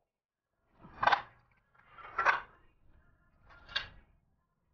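Three short scraping knocks, spaced a second or so apart, as the hollow wood-grain YP main board of a cabinet is slid and fitted against the grooved panel boards on a glass tabletop.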